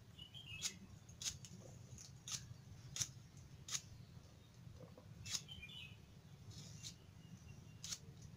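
Green taro stalks being cut and peeled against a boti, a curved blade fixed upright in a wooden base: crisp, sharp clicks of the blade going through the stalk, about eight of them at irregular gaps of roughly a second.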